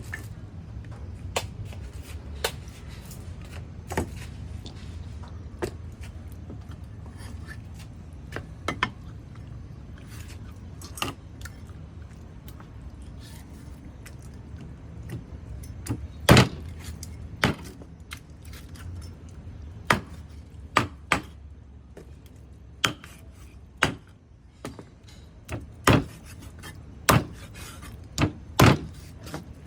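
Knife chopping on a wooden cutting board: irregular sharp knocks, sparse at first, then louder and more frequent through the second half.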